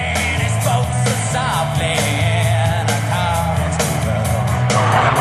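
Rock music with a singing voice over a steady drum beat and bass.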